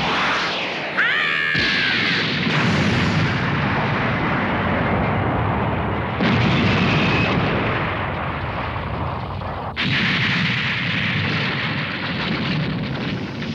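Anime blast and explosion sound effects: a loud, continuous rumbling blast noise with fresh blasts breaking in about 1, 6 and 10 seconds in.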